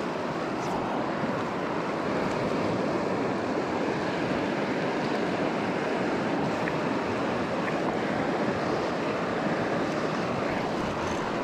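Steady rush of a fast-flowing river, heard from mid-stream with the microphone just above the water.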